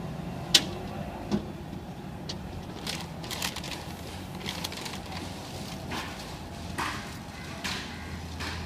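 Hands working inside a stripped Toyota Innova door shell: a sharp click about half a second in and a lighter knock soon after, then scattered scrapes and rustles, over a steady low hum.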